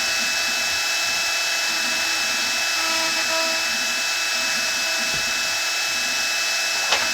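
Shapeoko Pro CNC's router spinning at a steady high speed as it carves a wooden sign, giving a constant high whine and hiss, with one short click near the end.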